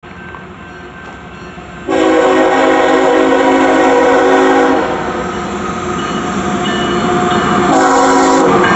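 Nathan K5HL air horn on an approaching CSX GE ES44AC locomotive sounding a loud long blast about two seconds in, then a short blast near the end. Rumble of the passing train runs beneath the horn.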